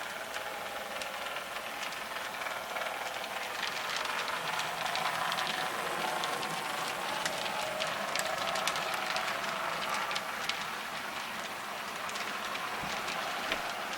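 HO-scale model train running along the track, a small motor whirring and wheels clicking over the rails, getting louder for several seconds in the middle and then easing off.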